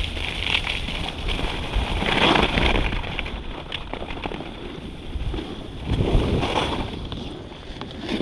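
Skis scraping and hissing over packed snow while wind buffets the microphone, as the skier slows toward a stop. Two louder swishes of turning skis come about two seconds in and about six seconds in.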